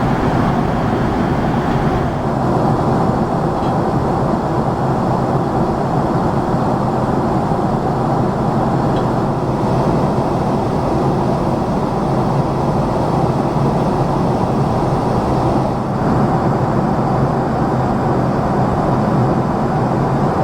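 Steady cabin noise of a Boeing 767-400ER airliner: a continuous din of engines and airflow, even in level throughout, with no sudden events.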